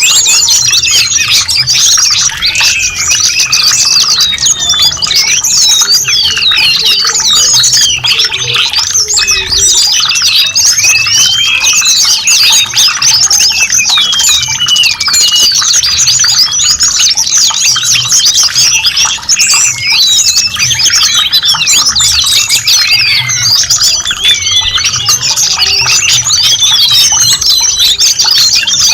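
A dense chorus of many small birds chirping and twittering at once, a constant overlapping mass of quick high calls.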